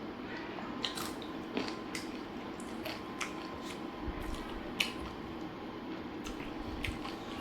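A person eating chicken biryani: wet chewing and mouth smacks, with scattered short sharp clicks, the sharpest just under five seconds in, over a steady low hum.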